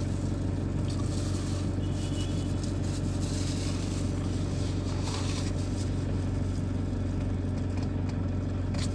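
Steady low hum of a van's idling engine, heard inside the closed cabin, with faint small clicks from eating.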